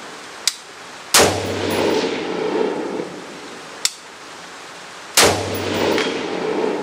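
Two shots from a short-barrelled AR-15 rifle (13.5-inch barrel), about four seconds apart, each followed by a long echoing tail. A fainter sharp ping comes a little before each shot.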